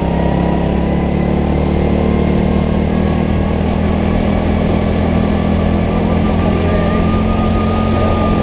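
Rental go-kart's small engine running at steady high revs through the corners, heard from the driver's helmet, with a high whine that climbs a little over the first couple of seconds and then holds.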